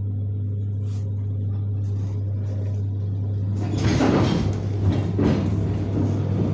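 Steady low hum of a suburban electric train. About halfway through, a louder clattering noise with scattered knocks begins, typical of the carriage's sliding doors opening.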